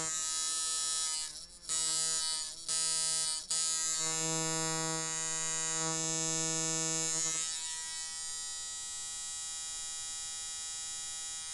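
Coil tattoo machine, built as a liner with Wesley Verity coils, running at about 6 volts with a steady electric buzz. It stops briefly three times in the first few seconds, then runs on, a little quieter in the second half.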